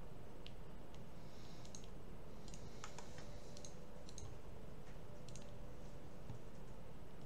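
Computer mouse clicking, short sharp clicks about once a second, over a steady low background hum.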